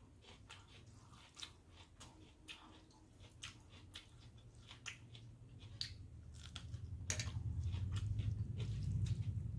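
Close-up chewing of soaked rice (panta bhat) eaten by hand: a string of small, irregular wet mouth clicks and smacks. A low hum rises in level over the second half.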